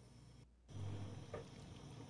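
Faint, soft squelching of fettuccine being stirred through thick Alfredo sauce in a pan with a silicone spatula, with a few light ticks, after a brief gap about half a second in.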